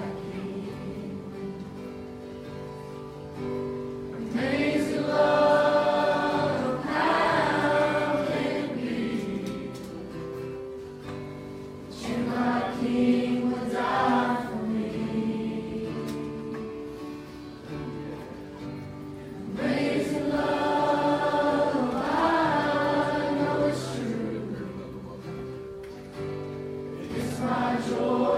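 Congregational gospel singing in phrases of a few seconds, over steady held instrumental accompaniment.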